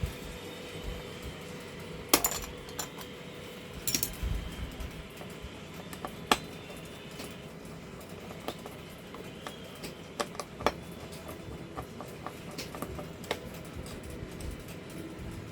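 Scattered sharp clicks and light metallic clinks of tools and small parts being handled, over a faint steady hum.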